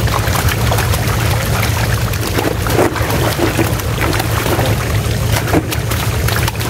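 Netted fish splashing and flapping in shallow water as they are handled, in short irregular bursts, over a steady low drone.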